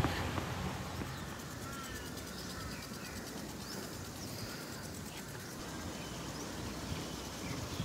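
Outdoor park ambience: scattered short bird chirps over a steady low background rumble.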